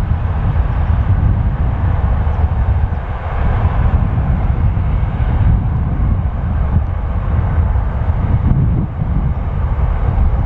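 Train running past on the mainline: a steady, loud rolling rumble that holds through the whole stretch without rising or fading.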